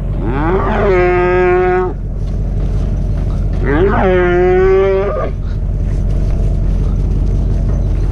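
Dairy heifer mooing twice, each call rising in pitch and then held for about a second and a half, the second about four seconds in, over a steady low engine hum.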